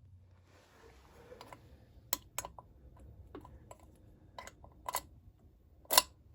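Irregular light clicks and taps, a dozen or so, with one louder knock about six seconds in.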